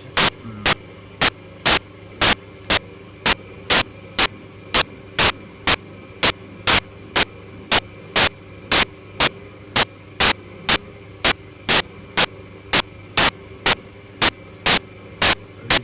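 Servis Quartz 6033 washing machine running with a steady hum, broken by a loud, sharp burst of noise about twice a second at a perfectly even beat.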